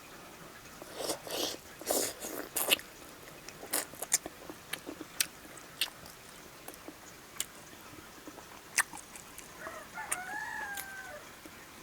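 Close-miked eating sounds: wet chewing, biting and lip smacks, busiest in the first three seconds, then scattered clicks. Near the end a chicken calls once in the background, a short call that rises and falls.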